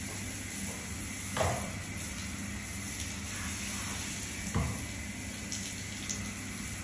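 Hose spray nozzle spraying water over a horse's coat, a steady hiss and patter of water falling onto the concrete floor. Two short, louder sounds break in, about a second and a half in and again about four and a half seconds in.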